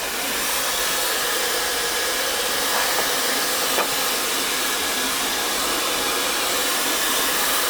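Hand-held hair dryer running steadily, a continuous airy rush with a faint steady hum from its motor.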